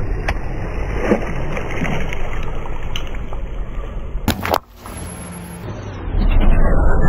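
Car tyre rolling through the water of burst water balloons on asphalt, with splashing and a few sharp clicks. About four and a half seconds in the sound breaks off to a quieter stretch, then the car rolling on asphalt comes up again near the end.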